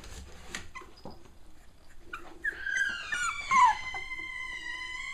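Cavalier King Charles Spaniel puppy whining. About halfway in, a high whine starts, slides down in pitch, then holds steady. Before it come soft rustles and clicks of play on the blanket.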